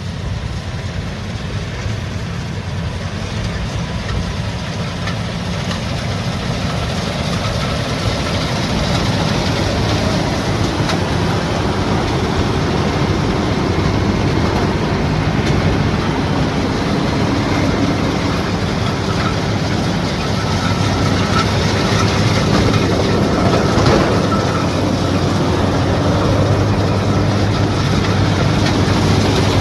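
Heavy farm machine's engine running steadily, growing gradually louder.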